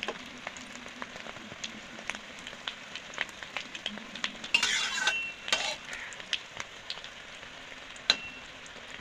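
Rohu fish-roe fritters frying in hot oil in a kadai: a steady sizzle with scattered small pops. About halfway through, a spatula scrapes and turns the fritters, and near the end a single sharp metal clink.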